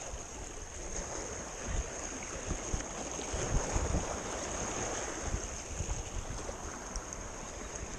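Wind buffeting the microphone in low gusts over the steady wash of sea water.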